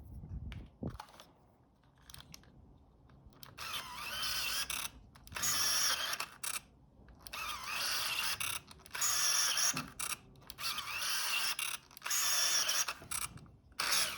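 Fuji GA645's geared lens motor driving the focusing helicoid in and out, a whirring whine in repeated bursts of about a second each with short pauses between them. The camera is being tested after glue was cleaned off its flex cable.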